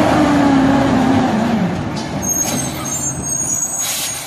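Rear-loader garbage truck's engine running, its note falling about a second and a half in, followed by two short air hisses.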